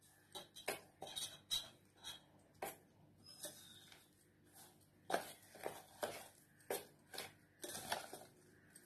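Steel spoon clinking and scraping against a stainless steel bowl while stirring a thick flour-and-semolina batter. Faint, irregular clinks, thinning out for a couple of seconds midway and then coming faster again.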